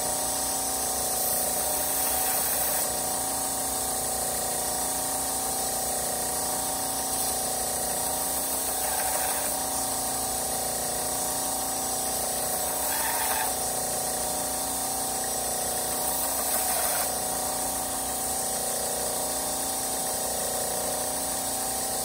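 Wilmont belt grinder running steadily on its single-speed motor, the belt whirring over the wheels of a waterfall platen while a knife blade is held against it. The sound swells briefly a few times, as the blade is pressed in to grind out vertical lines.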